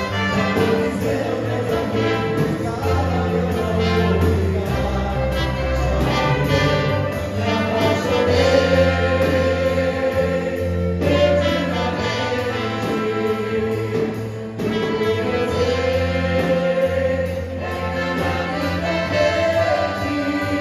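A small choir and chamber ensemble performing a pop ballad live: several voices singing together over violin, cello, keyboard and trumpets.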